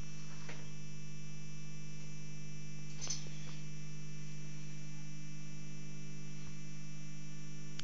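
Steady electrical mains hum with a faint click about three seconds in.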